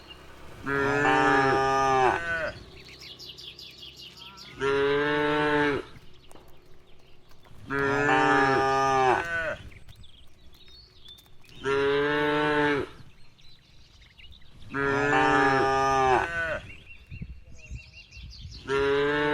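Cattle mooing repeatedly: loud, drawn-out moos of about a second or more each, coming about every three to four seconds.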